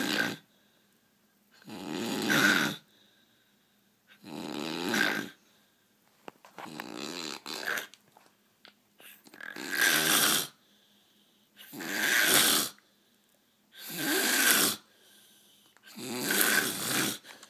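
A sleeping person snoring in a steady rhythm: about eight long snores, one roughly every two seconds, each swelling louder toward its end, with quiet breaths between them. One snore about seven seconds in comes out broken and uneven.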